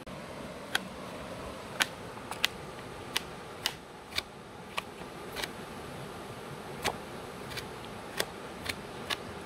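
Kitchen knife chopping red onion on a plate: sharp, irregular clicks as the blade strikes the plate, about fourteen over the stretch, over a steady faint background hiss.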